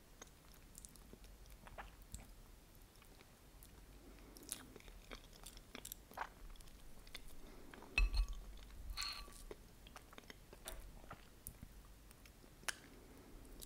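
Close-miked chewing of soft New York cheesecake with caramel sauce: quiet wet mouth sounds with many small clicks. About eight seconds in there is one louder knock with a brief ring.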